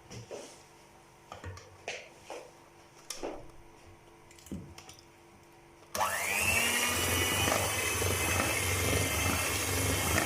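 Electric hand mixer switched on about six seconds in, its motor spinning up with a rising whine and then running steadily as it beats a thick chocolate brownie batter. Before it starts there are a few light knocks.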